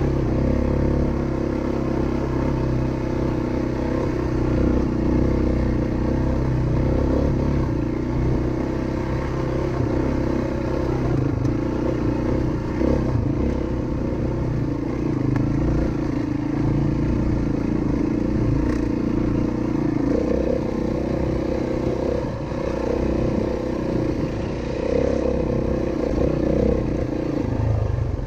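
Single-cylinder four-stroke dirt bike engine running steadily as the bike is ridden.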